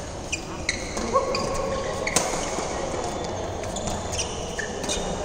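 Badminton shoes squeaking in short high chirps on a synthetic court floor, with a couple of sharp racket-on-shuttlecock hits, the clearest about two seconds in, echoing in a large hall.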